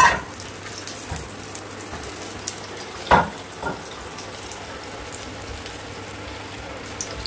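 Hot oil sizzling steadily in a kadai as puffed fried bread deep-fries, with a few short knocks of a steel slotted spoon against the pan, the loudest about three seconds in.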